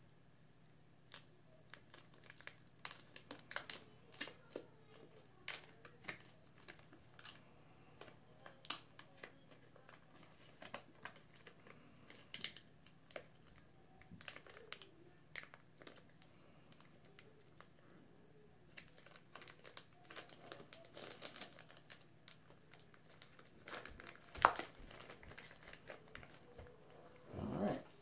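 Packaging of a log of snuff cans being torn open and unwrapped by hand: scattered crinkles and sharp crackles, with one louder snap about three-quarters of the way through and a longer rustle near the end.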